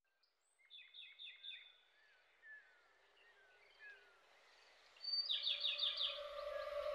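Bird chirps over a faint hiss: a few short repeated calls, then thin gliding whistles. About five seconds in, a louder run of rapid chirps comes as a soft, sustained music pad fades in.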